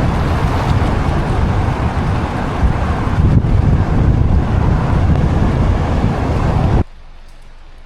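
Strong wind buffeting the microphone, a loud rumbling rush that cuts off abruptly near the end.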